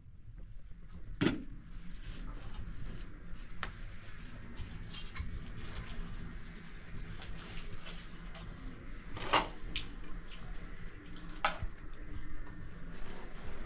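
Tableware clattering as rice is served: a metal ladle, spoons, plates and glasses clinking and knocking, with a few sharper knocks, the loudest about a second in and again about nine seconds in, over a steady low hum.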